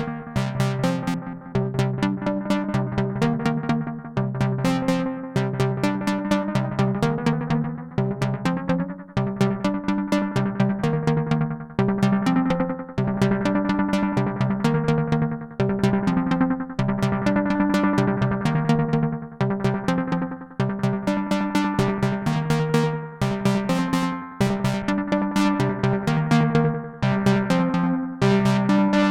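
Arturia MicroFreak synthesizer playing a fast sequenced pattern of short plucked notes through a Behringer VD-400 analog delay pedal, the echoes trailing each note. The phrase repeats about every four seconds.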